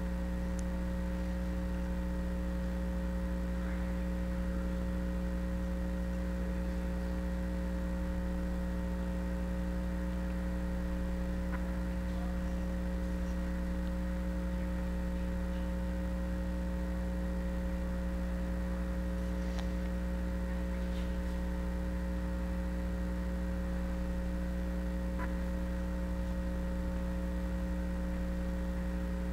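Steady electrical mains hum: a low buzz with a stack of evenly spaced higher overtones, holding at one level.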